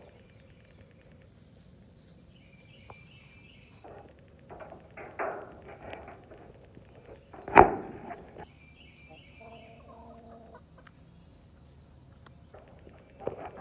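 Chickens clucking close by in short irregular bursts, with one sharp knock a little past halfway that is the loudest sound.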